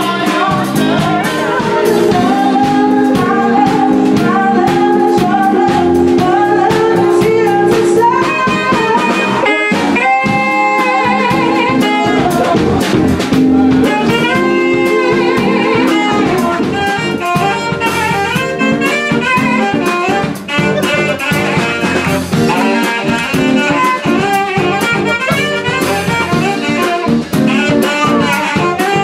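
Live band playing upbeat jazzy dance music with drums, amplified in a lounge.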